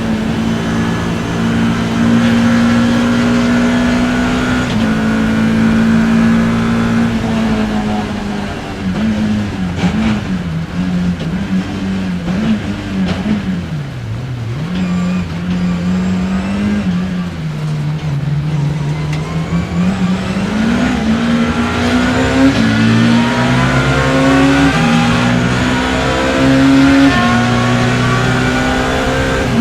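BMW E30 M3's four-cylinder S14 race engine heard from the cockpit, held at high revs for the first several seconds. The revs then fall and waver as the driver lifts and brakes through a slow section, bottoming out about halfway. The engine then pulls hard again, rising in pitch through the gears in steps near the end.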